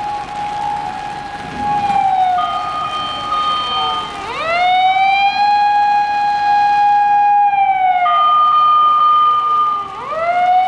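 Fire department emergency-vehicle siren from a Patlite SAP-520 siren amplifier in intersection mode. A held high tone slides slowly down, then snaps quickly back up, twice. A steady higher tone sounds alongside during each downward slide.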